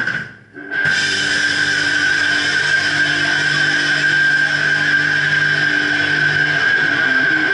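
Heavily distorted electric guitars and bass kick in about a second in and hold a droning chord under a steady high whine. Near the end the low notes start to move as a riff begins.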